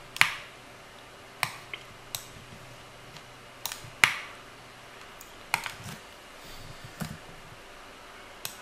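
Computer keyboard and mouse clicks: about eight sharp, separate clicks at irregular spacing, the loudest a moment after the start and about four seconds in.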